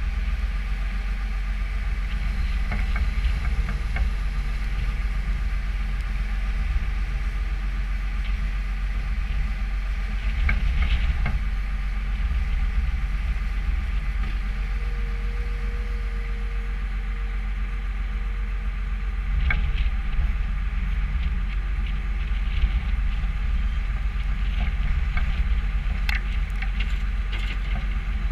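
New Holland skid steer's engine running steadily, with a few short metallic knocks scattered through it.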